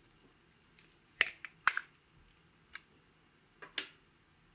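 Rose-shaped lid of a small plastic makeup pot being pulled off: two sharp plastic clicks about half a second apart, then a few fainter clicks and taps.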